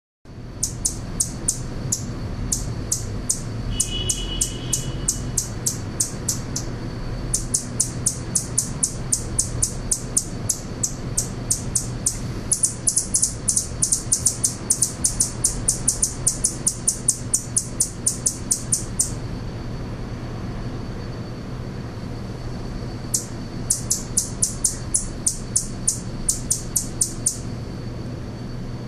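Male Anna's hummingbird singing from a perch: a fast run of high, scratchy chips, about four or five a second, that stops briefly after about six seconds and again for several seconds past the middle. A steady low hum runs underneath.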